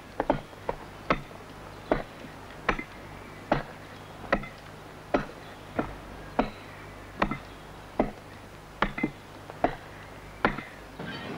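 Hammer driving a row of wedges into sandstone: evenly spaced sharp blows, a little more than one a second, a few of them doubled. The wedges are driven in evenly so the rock splits cleanly.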